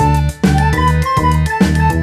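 Background music with a steady, bouncy beat and bright repeated notes over a bass line.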